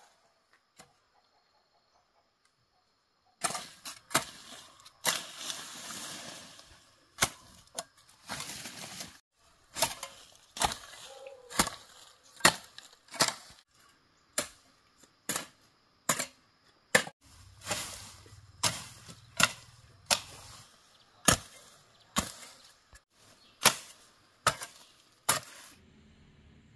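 Repeated sharp chopping strikes, roughly one a second, starting about three and a half seconds in, with rustling between them.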